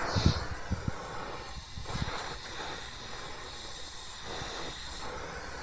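Oxy-acetylene torch flame hissing steadily while it heats a steel tip being brass-brazed onto a circular saw blade, with a few low thumps in the first two seconds.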